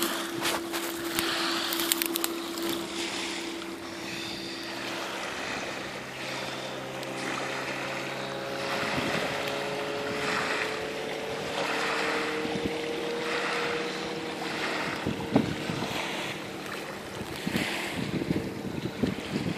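Wind on the microphone and small waves washing against the shore, swelling and fading about once a second. A faint steady hum drifts slowly in pitch underneath, and a few rustles come in the first seconds.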